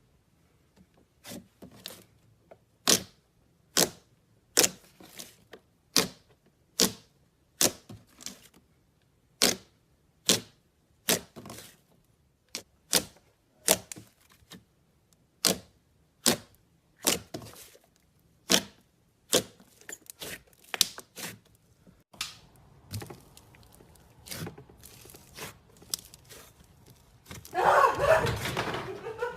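Slime being pressed and poked, popping with sharp clicks about once a second; near the end a louder rustling burst.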